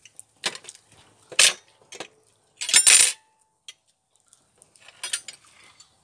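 Metal cutlery clinking and scraping on plates during a meal, in short clatters with the loudest about a second and a half in and a longer burst around three seconds in.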